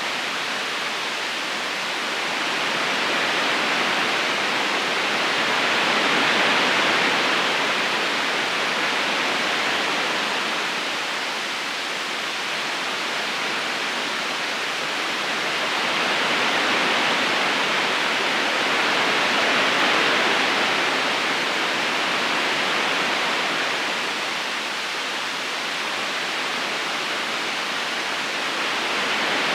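River current rushing steadily over stones: an even hiss of running water that slowly swells and eases every ten seconds or so.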